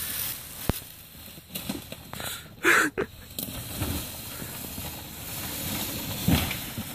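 Golf cart rolling across dry fallen leaves, its tyres crunching and hissing through the leaf litter, with two louder bursts of noise, about three seconds in and near the end.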